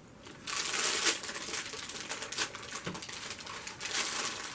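Paper food wrapper crinkling and rustling close to the microphone, starting suddenly about half a second in.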